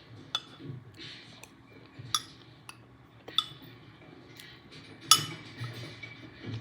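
Scattered sharp clinks and taps, some ringing briefly, the loudest coming about five seconds in.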